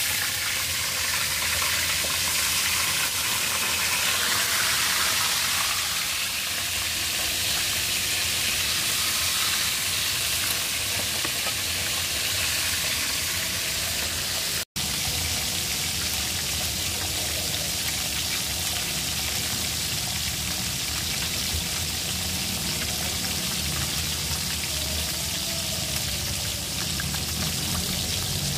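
Tilapia pieces frying in hot oil, a steady sizzle that cuts out for an instant about halfway through.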